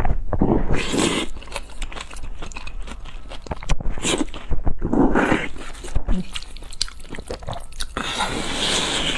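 Close-miked slurping of wide noodles in thick black bean sauce, with wet, sticky chewing and mouth clicks between slurps. There are several slurps, the longest, hissing one near the end.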